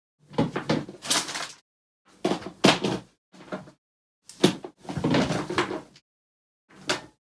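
Five short bursts of knocks, clicks and rustling, typical of hands handling hard objects, with complete silence between them.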